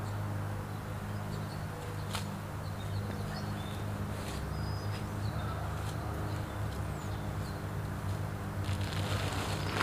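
A steady low hum with a few faint bird chirps and occasional sharp clicks and rustles, as a folding camping cot's frame and fabric are handled.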